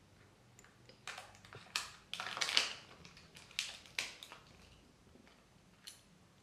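Kinder Joy egg being opened by hand: its foil seal and plastic wrapping crinkle in a run of short crackles, loudest about two and a half seconds in, followed by a single light click near the end.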